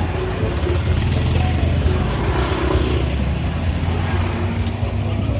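Sound-system truck: a loud, steady deep rumble with a few faint tones above it.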